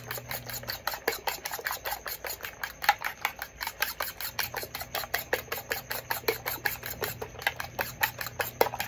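Eggs being beaten by hand in a bowl: a utensil clicking against the sides of the bowl in a quick, even rhythm, about five strikes a second.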